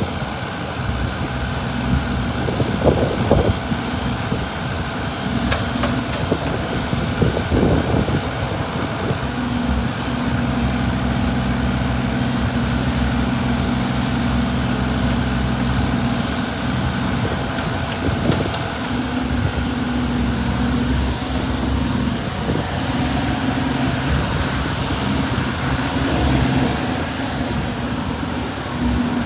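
Kobelco SK25SR-6E mini excavator's diesel engine running steadily, a little louder from about ten seconds in, with a few short knocks in the first several seconds.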